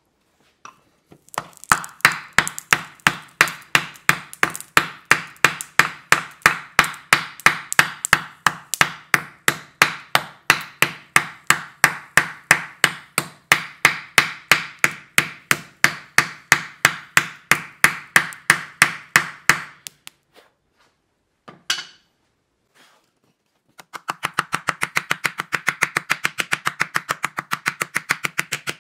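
Ball-peen hammer striking a hot steel coffee-scoop bowl set on a wooden block, dishing it out: steady, rapid blows at about four a second. They pause briefly for a couple of single knocks, then resume faster and a little quieter near the end.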